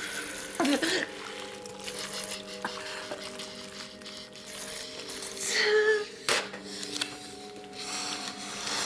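A woman's pained groans and strained cries, the loudest about six seconds in, over a low sustained drone. A sharp click follows the loudest cry.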